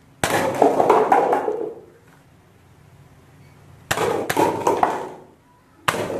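Toy dart rifle firing with a sharp snap, followed each time by paper cups toppling and clattering down onto the board and floor. This happens twice, at the start and about four seconds in, and a third shot comes near the end.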